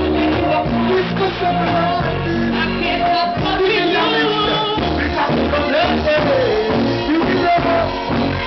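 Loud live band music through a PA: electric guitars, keyboards and a deep bass line changing note about once a second, with a voice singing over it.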